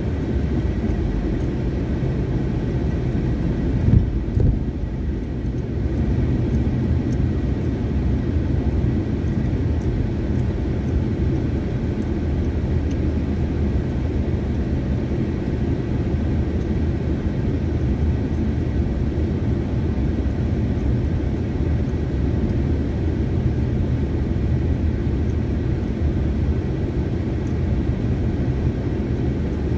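Car driving at low speed, heard from inside the cabin: a steady low rumble of engine and tyres on the road. About four seconds in there is a brief thump as the wheels go over a raised paved crossing.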